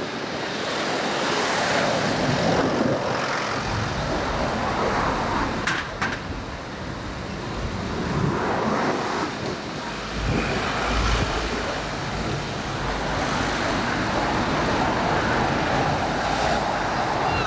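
Busy street traffic noise: a steady wash of passing cars and other vehicles, with a deeper rumble from a heavier vehicle going by about ten seconds in.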